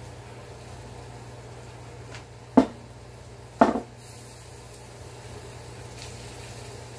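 Two sharp knocks about a second apart as kitchen containers are handled at a wooden counter, over a steady low hum.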